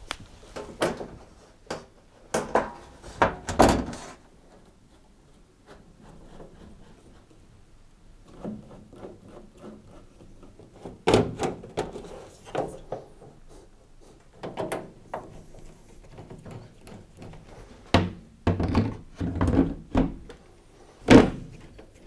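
Scattered thunks and knocks of sheet-metal panels being fitted back onto an LG tumble dryer's cabinet as the top and side panels go on, with a quieter stretch between them and the loudest knock near the end.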